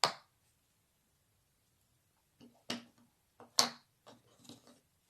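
A sharp click, then after about two seconds a quick run of short taps and knocks, like small objects being handled and set down on a surface.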